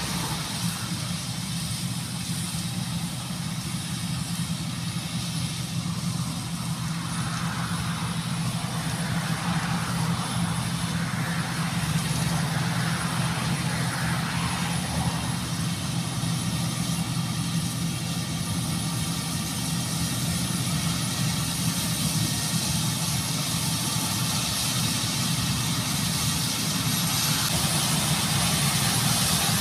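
Claas Lexion combine harvester running while it cuts with its draper header: a steady low engine hum with a hiss above it, growing louder toward the end as the combine comes closer.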